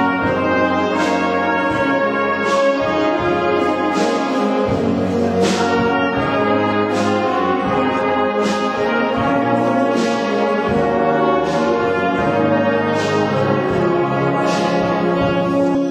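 Brass and reed band playing a slow piece in sustained chords, with a struck accent on the beat about every second and a half.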